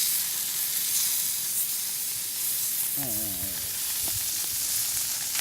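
Pacific saury sizzling steadily as it cooks on a hot cooking surface, a continuous high frying hiss.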